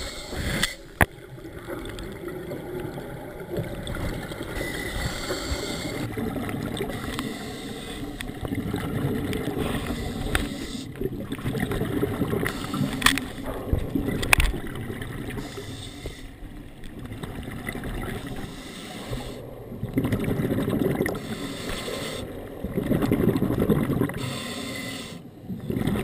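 Scuba breathing heard through an underwater camera: exhaled bubbles from the regulator gurgling in bursts every few seconds, the loudest two near the end. A few sharp clicks stand out, about a second in and twice around the middle.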